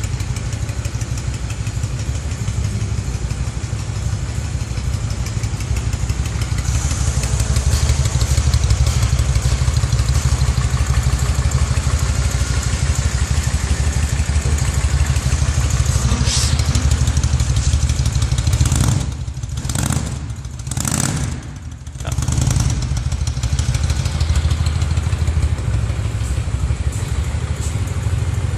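1993 Honda Shadow V-twin motorcycle engine running through its stock exhaust, a steady low rumble. About two-thirds of the way through it dips and surges sharply a few times before settling back.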